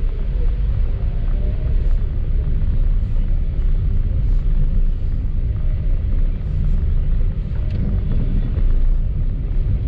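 A car driving on a wet road, with a steady low rumble of engine and tyres.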